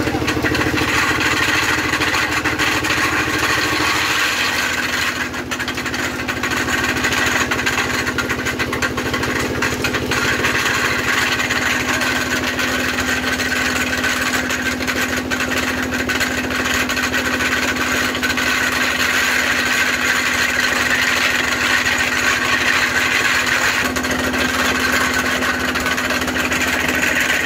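Diesel engine running steadily, driving a belt-driven sugarcane roller mill (trapiche) as cane stalks are fed through and crushed. The steady hum shifts slightly in pitch about four seconds in and again near the end.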